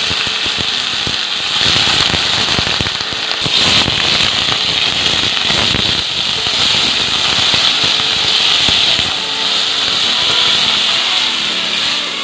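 Chopped banana stem frying in hot oil in an aluminium wok, sizzling and crackling loudly and steadily as a metal spatula stirs it.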